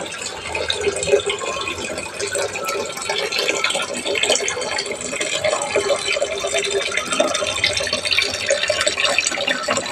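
Water splashing and trickling steadily down a small aquarium waterfall, a constant fine patter of drops.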